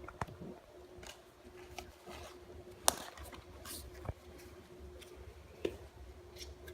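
Hands handling a Pokémon trading-card booster pack and its cards: scattered light clicks and brief rustles, with one sharper click about three seconds in, over a faint steady hum.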